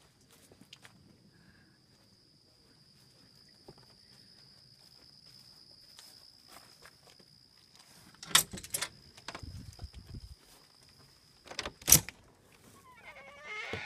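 Soft footsteps, then a door's latch and handle clattering loudly as a door is worked open, twice: about eight seconds in and again about twelve seconds in. Near the end a pet animal starts whining.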